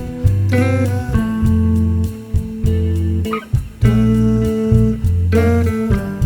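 Background music: plucked guitar over a steady, repeating bass line.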